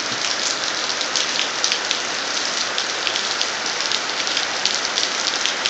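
Steady rain falling, with many individual drops striking close by throughout.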